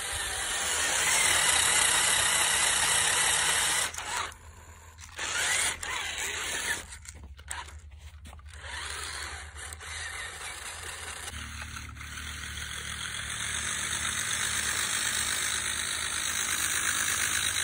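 Toy RC rock crawler's small electric drive motor and gearbox whining as it crawls over dirt and rocks. The whine cuts out briefly twice in the first half, then builds again and grows louder towards the end.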